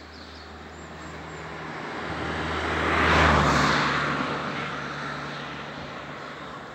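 A motor vehicle passing by. Engine and tyre noise swells to a peak about three seconds in, then fades away.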